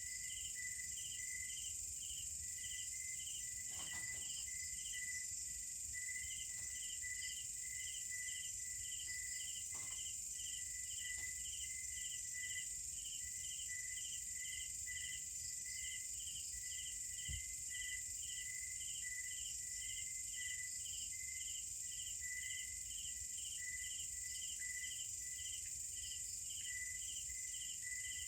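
Night insect chorus of crickets: a steady high-pitched drone under a regular chirping about twice a second, with a faint low rumble beneath.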